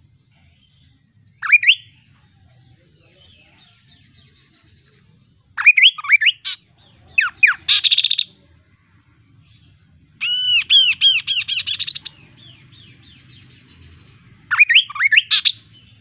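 Chestnut-capped babbler (kaso-kaso) singing in short bursts of quick, sweeping whistled notes. About halfway through comes a longer run of about a dozen fast, evenly repeated looping notes.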